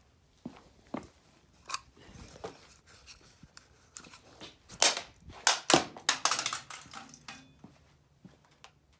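Irregular sharp knocks and cracks of a computer mouse being smashed: scattered hits at first, then a run of harder, quick hits in the middle, fading near the end.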